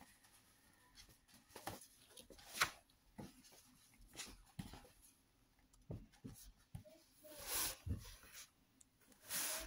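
Pages of a large illustrated hardcover book being turned by hand: soft paper rustling and light handling clicks, with a few louder page swishes, one about two and a half seconds in and two more near the end.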